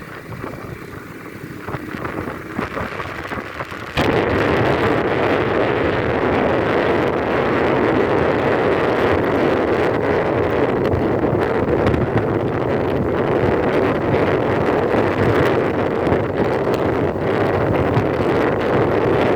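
Steady rushing noise of wind while on the move, stepping suddenly much louder about four seconds in and holding there.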